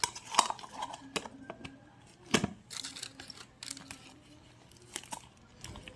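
Parcel packaging being handled and torn open: irregular crinkling and tearing with sharp crackles, the loudest snap about two and a half seconds in.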